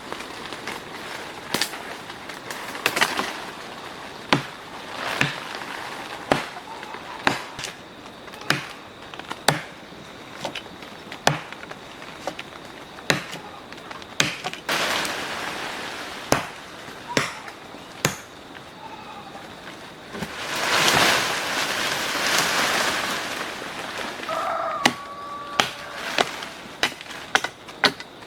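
Repeated sharp strikes, roughly one a second, like blows of a blade or tool on a hard surface, with two longer hissing rushes in the middle.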